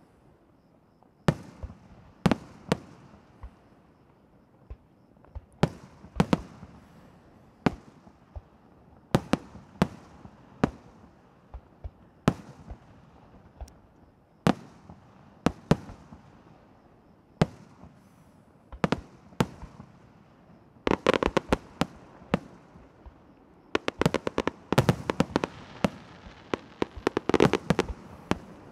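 Fireworks display (a Valencian castillo): aerial shells bursting as single sharp bangs, one every second or two. After about twenty seconds these give way to rapid, dense strings of bangs.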